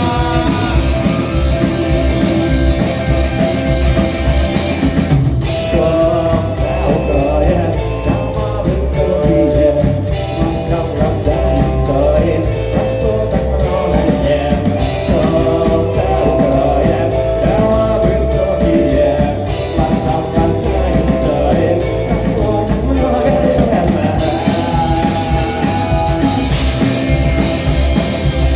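Rock band playing with a singer, drum kit and electric guitars, with a brief break about five seconds in before the song carries on.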